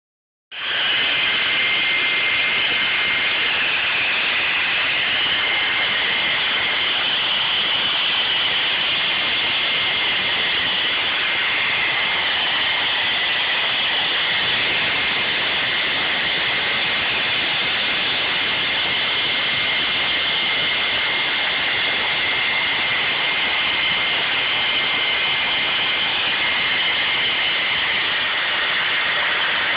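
Hand-held hair dryer switched on about half a second in and blowing steadily: a constant rushing of air with a thin high whine from its fan motor.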